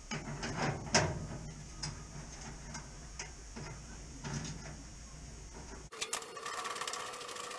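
Hand tool clicking and tapping on metal as bolts on a car restoration jig are undone, in irregular clicks about two a second. About six seconds in the sound changes abruptly to quicker, denser clicking.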